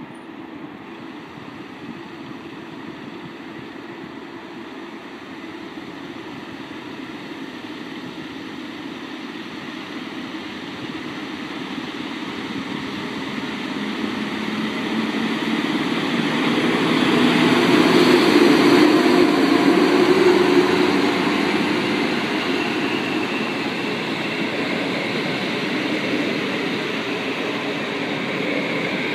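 PKP class EP07 electric locomotive hauling a passenger train, approaching and passing: a steady running noise that grows louder, is loudest about eighteen to twenty seconds in as the locomotive goes by, then continues more quietly as the coaches roll past on the rails.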